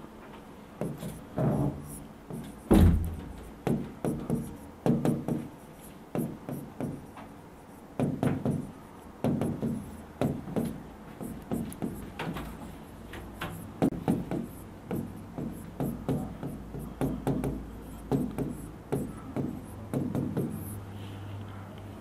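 Stylus tapping and sliding on the glass of an interactive touchscreen board in short, irregular strokes of handwriting, with a louder knock about three seconds in, over a faint steady hum.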